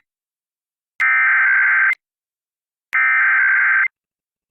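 Emergency Alert System SAME header: two bursts of shrill digital data tones, each just under a second long and a second apart, that begin a civil emergency alert.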